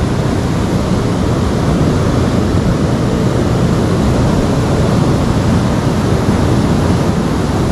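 Steady rushing of river water, an even noise without change.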